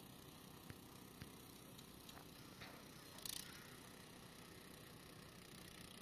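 Near silence, with a few faint ticks and one short, soft hiss about three seconds in.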